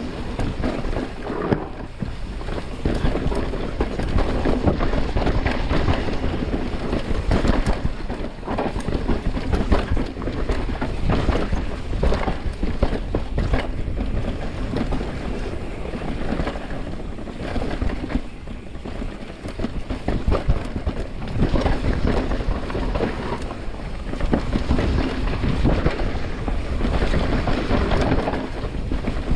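Wind buffeting the microphone over the rumble of mountain bike tyres on a rough dirt trail, with many quick rattles and knocks from the Santa Cruz Nomad mountain bike bouncing over bumps.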